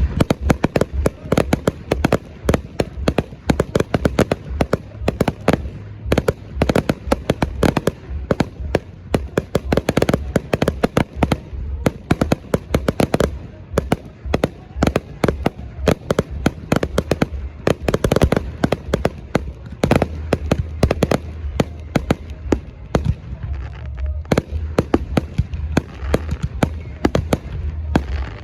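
Fireworks display: a dense barrage of bangs and crackling, several reports a second, kept up without a break.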